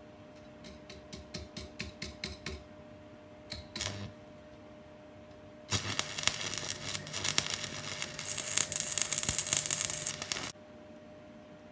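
A rapid run of about ten clicks, then an electric welding arc crackling for about five seconds as a weld bead is laid on a steel inlet manifold, stopping abruptly.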